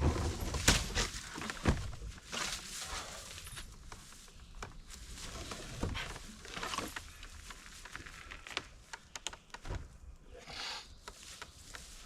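Scattered knocks, clunks and rustling from hands-on work, the loudest being two sharp knocks in the first two seconds.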